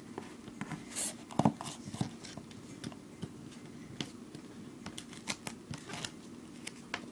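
Hands working duct tape on a cardboard cup made from empty tape rolls: rustling and pressing of the tape, with scattered small clicks and taps and one louder knock about one and a half seconds in.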